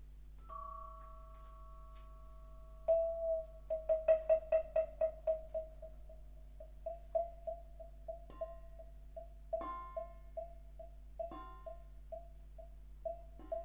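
Vibraphone played with mallets. A softly ringing held note gives way, about three seconds in, to one bar struck over and over, quickly at first (about five strokes a second), then slower and more sparse. A few other notes ring in over the repeated note.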